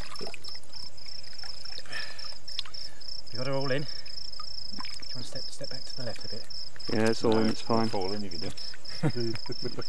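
Night insects, crickets, chirping in a steady high-pitched pulsing trill, with a few short snatches of low voices a few seconds in and again near the end.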